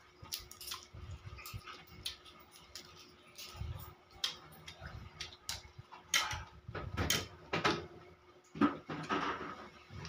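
Eating sounds: irregular clicks and crackles as a large prawn's shell is pulled apart by hand, with chewing and wet mouth noises. They grow louder and busier in the second half.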